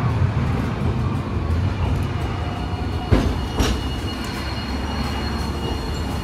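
Hiroden 3900-series articulated tram running slowly into a stop with a low rumble. Its wheels give two sharp clacks on the rails a little after halfway, and a faint high steady whine comes in near the end.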